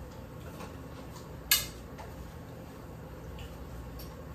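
A single sharp clink of cutlery against a plate about a second and a half in, and a fainter tick near the end, over a low steady room hum.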